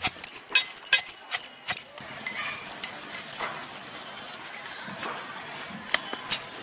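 Ribbed iron pestle pounding ginger and black sesame in an iron mortar (hamandista): about five sharp metallic strikes in the first two seconds. After that comes softer scraping and rubbing as the paste is dug out of the mortar, with two more knocks near the end.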